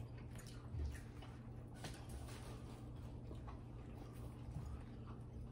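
Quiet table eating sounds: a few faint clicks of forks on plates and chewing, with a soft thump about a second in, over a steady low hum.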